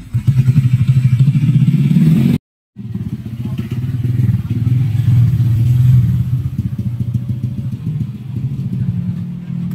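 Drag-built Suzuki Satria FU's single-cylinder four-stroke engine running at a steady, pulsing idle, with a short total dropout about two and a half seconds in.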